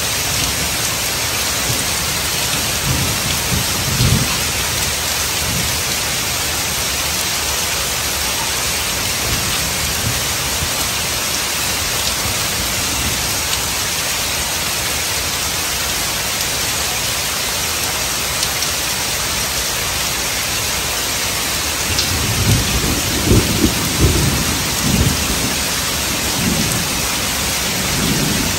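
Heavy rain falling steadily on pavement and foliage, with low rolls of thunder about 3 to 4 seconds in and again from about 22 seconds in, the later one longer and louder.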